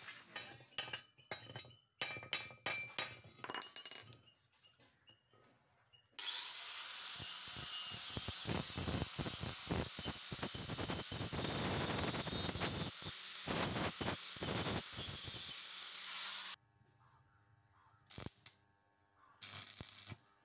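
Steel plates knocking and clinking, then an angle grinder spinning up with a rising whine about six seconds in and grinding the edge of a steel plate for about ten seconds before it cuts off suddenly. Near the end come two brief bursts of a stick-welding arc.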